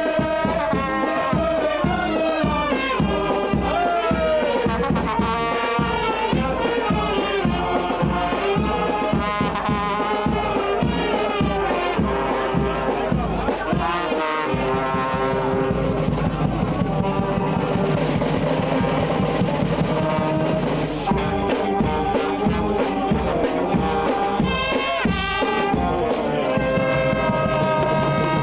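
A banda, a festive brass band, playing a lively tune: trumpets and trombones over drums with a steady beat.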